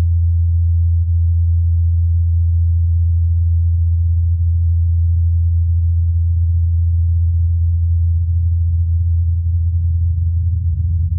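Ingenuity Mars helicopter's rotors spinning in flight, heard as a loud, steady low hum that grows slightly rougher near the end.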